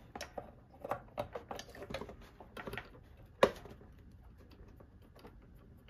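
Small clicks and rattles of a circuit card and cable plugs being handled and connected, with one sharper click about three and a half seconds in; quieter after that.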